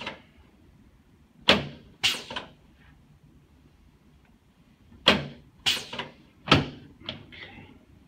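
Sharp clacks of a chiropractic drop table's spring-loaded drop pieces snapping down under the chiropractor's thrusts: two about a second and a half in, then a quick run of four between five and seven seconds.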